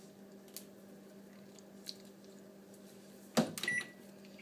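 Steady hum of a running kitchen appliance. A little over three seconds in comes a knock, then one short high electronic keypad beep.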